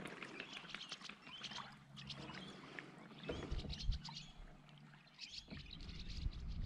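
Kayak paddle strokes splashing and dripping water, with many short bird chirps throughout.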